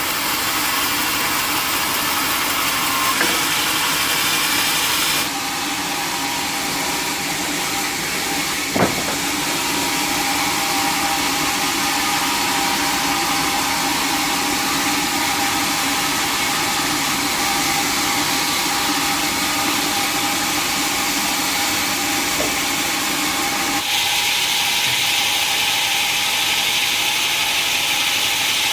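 Sawmill machinery running steadily, a loud continuous mechanical noise with a faint hum. The sound changes abruptly about five seconds in and again near the end, and there is one sharp knock about nine seconds in.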